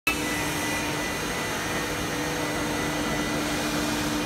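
A CNC wood lathe running, a steady mechanical hum with a few constant tones over an even noise.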